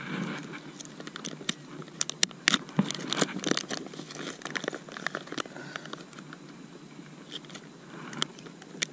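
Plastic bait packets crinkling and rustling as they are handled, with a string of irregular sharp crackles.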